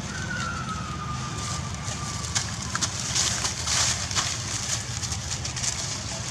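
A baby long-tailed macaque cries with a long, thin, whining call that slowly falls in pitch. About halfway through, scuffling and rustling in dry leaves takes over as the baby is dragged and tumbles about.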